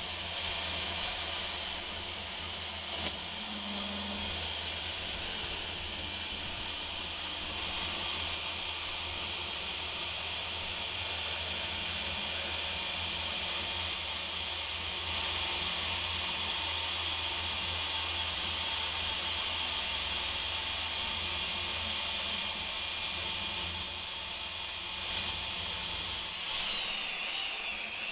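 Electric drill spinning a square wooden stick through a homemade rounding jig, whose carbide tips cut from an old circular-saw blade shave it into an 8 mm dowel. It makes a steady hissing shaving sound over the hum of the drill motor, with one sharp click about three seconds in and a few sliding whines near the end.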